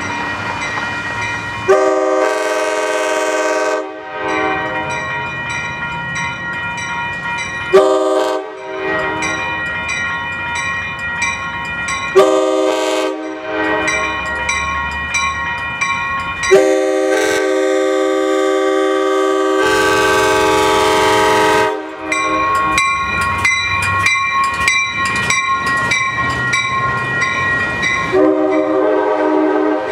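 Amtrak passenger train's multi-tone air horn sounding a run of blasts, the last of them held about five seconds, the warning for a grade crossing. Between the blasts a crossing bell rings at a steady beat of about two strokes a second.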